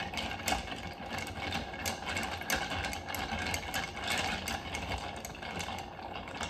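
Bar spoon stirring ice in a glass mixing mug: a quick, continuous run of clinks and rattles as the ice cubes are pushed around against the glass.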